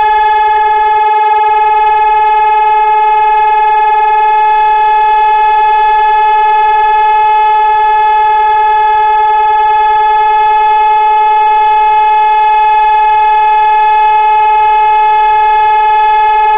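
Hörmann ECN 3000 electronic siren, a mast of stacked horn loudspeakers, sounding one loud steady tone that neither rises nor falls: the continuous remembrance signal of Israel's two-minute memorial siren.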